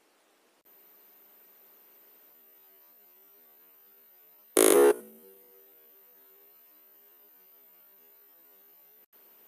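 A single shot from an air rifle with a .217 TJ barrel, firing a 31.2-grain NSA slug at about 1030 fps: one sharp, loud report about four and a half seconds in, with a short fading tail. A faint steady hum runs underneath.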